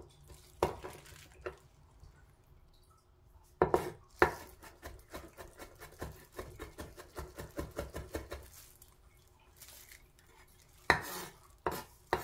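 Chef's knife mincing garlic on a wooden cutting board: a few single cuts, then a fast, even run of knife strikes on the board at about four or five a second for some four seconds, and a couple of sharp knocks near the end.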